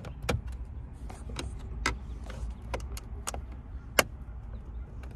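Flat screwdriver prying behind the plastic climate-control panel in a 1987 Toyota Cressida dash, giving a series of short sharp clicks and ticks of metal on plastic trim and clips, with one sharper click about four seconds in.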